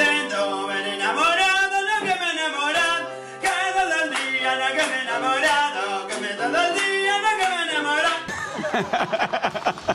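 A man singing loudly over music with steady held bass notes, his voice sliding up and down. Near the end it turns into a noisier, fast-stuttering stretch.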